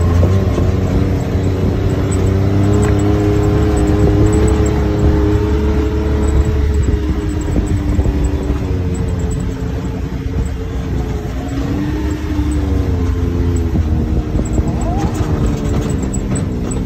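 Side-by-side UTV's engine running at a steady trail speed, heard from on board, its pitch easing up and down with the throttle over a heavy low rumble.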